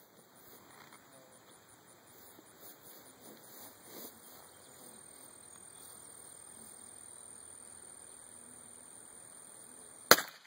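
A single shot from a Taurus Tracker 990 nine-shot .22 LR revolver, one sharp crack near the end, over faint steady background noise.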